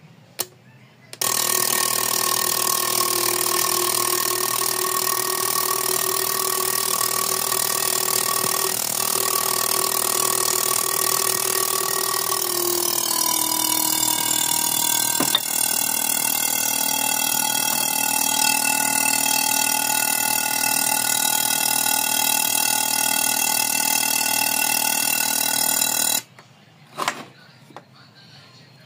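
Fuel injector test-and-cleaning machine running, a steady buzzing drone that starts abruptly about a second in and stops abruptly near the end. Its pitch dips slightly about halfway through, and there is a single click shortly after.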